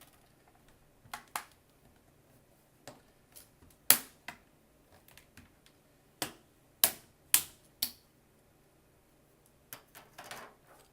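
Plastic snap clips of a laptop screen's front bezel clicking loose as the bezel is pried off by hand: a scattered series of sharp clicks and snaps, the loudest about four seconds in and a quick run of four more around six to eight seconds.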